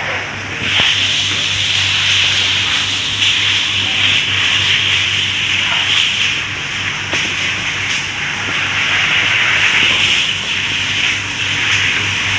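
A steady hiss that swells and eases every few seconds, over a constant low electric-motor hum.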